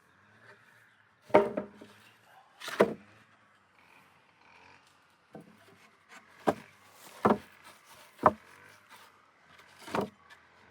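Wood being struck: seven sharp knocks at irregular intervals, the two loudest a little over a second in and about eight seconds in. This is work on an old wooden beehive being restored.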